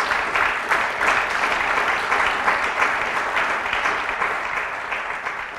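Audience applauding, dying away gradually near the end.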